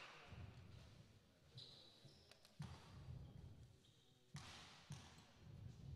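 A basketball bounced a few times on a sports hall floor, a free-throw shooter's dribbles at the line before the shot: short, soft thumps, the clearest in the second half.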